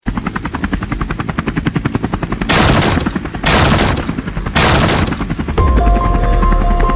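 Helicopter sound effect: a very fast, even rotor chop, with three louder rushing bursts around the middle. Music with held tones comes in near the end.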